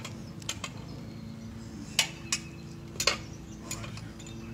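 Scattered sharp clicks and light metallic clinks from a puppy moving and licking, the clinks typical of a collar tag, over a steady low hum.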